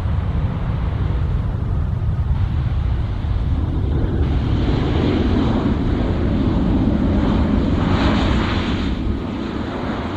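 Jet airliner engines building to a roar that is loudest about eight seconds in, then easing off, over heavy wind buffeting the microphone.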